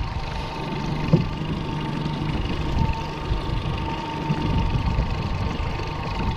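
Mercury 60 HP outboard motor running steadily on a new boat during its break-in run, with a low rumble, a steady whine and the rush of wind and water. There is a single knock about a second in.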